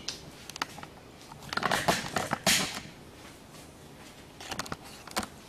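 Handling noises: scattered clicks and a few short rustles, the loudest about two and a half seconds in.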